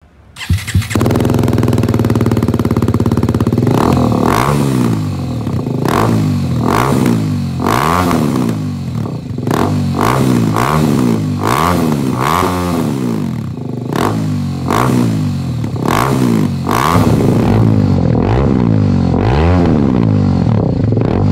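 BMW G310 R's single-cylinder engine through an aftermarket headerback exhaust with a slip-on muffler. It starts up and idles for a few seconds, then is revved in neutral in short throttle blips about once a second, the pitch rising and falling with each.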